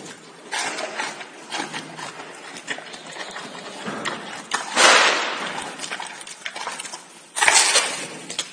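Giant panda chewing and crunching its food close to the microphone: a run of wet clicks and crackles, with two louder crunching bursts, one about five seconds in and one near the end.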